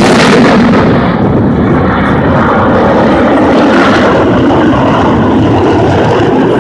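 MiG-29 fighter jet passing overhead, its twin turbofan engines making a loud jet rumble. The high hiss falls away about a second in as the jet moves off, leaving a deep rumble.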